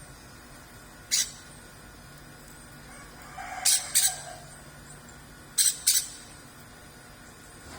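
Songbird giving short, sharp high-pitched calls: one, then two quick pairs.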